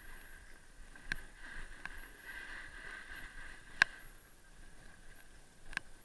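Ski or snowboard edges sliding and scraping over packed, tracked piste snow, a steady hiss broken by three sharp clicks, the loudest almost four seconds in.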